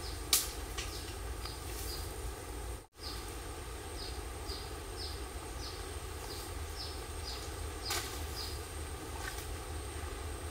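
Short high chirps from a small animal, each dropping in pitch, repeating about twice a second over a low steady outdoor rumble. There is a sharp click near the start and another near the end, and a brief dropout to silence about three seconds in.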